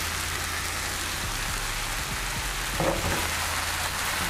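Chicken pieces sizzling in hot oil in a frying pan, a steady crackling hiss. About three seconds in there is a brief louder clatter as the pan is tossed and the chicken shifts in it.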